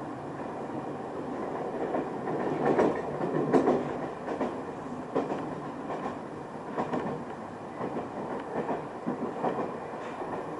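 Local electric train running, heard from inside the car: a steady rumble with the wheels clicking irregularly over rail joints, loudest a few seconds in.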